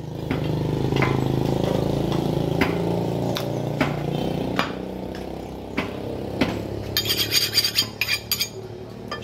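Heavy butcher's knife chopping beef on a wooden log chopping block, a dull chop about once a second. Under it runs the steady hum of a motor engine, which fades about halfway through. Near the end comes a quick run of sharp metallic clicks and scrapes.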